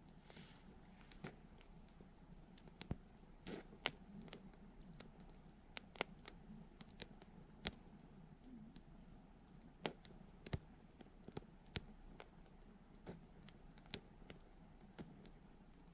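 Wood campfire crackling: sharp, irregular pops and snaps, about one or two a second, some much louder than others, over a faint steady background.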